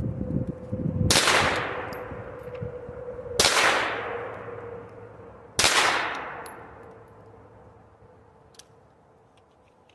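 Three single, deliberate gunshots from a pistol-caliber sub-gun, a bit more than two seconds apart, each ringing out over a second or two. The shots are aimed at center mass on targets at different distances to show the drop of the point of impact (the mechanical offset).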